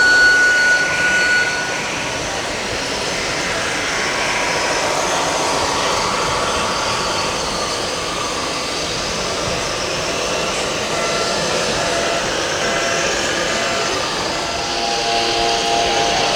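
Busy model-fair hall ambience: a steady mix of crowd chatter and small RC truck noises. A loud steady electronic beep sounds for about the first two seconds, then stops.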